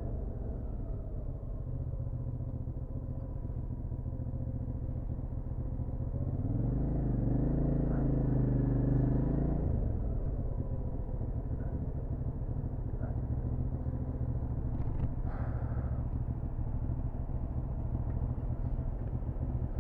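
Hyosung GT650R's V-twin engine running while the bike rides along, a steady drone. About six and a half seconds in it rises in pitch and gets louder, holds for about three seconds, then drops back just before the ten-second mark.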